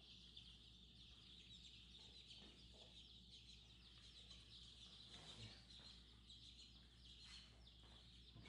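A brood of baby chicks peeping: many high, short cheeps overlapping in a constant faint chorus, with a few light knocks here and there.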